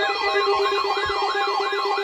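Electronic emergency alert tone from a weekly EAS test: steady tones layered under a fast siren-like warble that sweeps up and down about three times a second.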